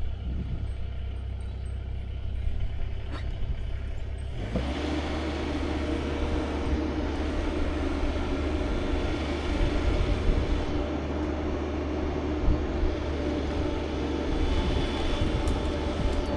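Engine running low and steady, then stepping up to a higher, steady speed about four and a half seconds in.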